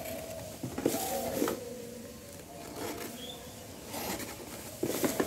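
Packing tape being slit and peeled off a cardboard parcel: short rasping rips about a second in and again near four and five seconds.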